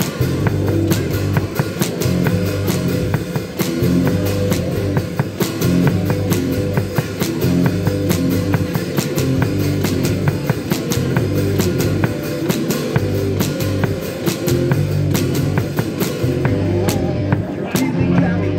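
Live rock band playing: guitar over a drum kit keeping a steady beat, with a kick drum and cymbal strokes.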